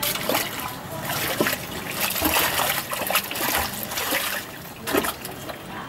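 Thick sewage sludge in a manhole splashing and sloshing as a long rod is worked and plunged into it to clear the drain by hand. The splashes come irregularly, with a sharper one about five seconds in.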